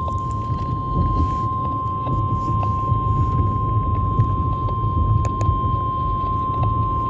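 Emergency Alert System attention tone: one steady, single-pitch beep held for several seconds, typical of the NOAA Weather Radio warning alarm before a severe thunderstorm warning. Under it runs a low rumbling background with scattered faint crackles.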